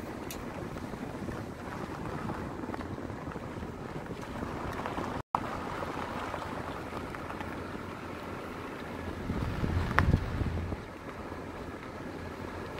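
Vehicle driving slowly on a gravel dirt road, with a steady rumble of tyres and engine. The sound drops out briefly about five seconds in. About ten seconds in there is a louder bump and a sharp knock.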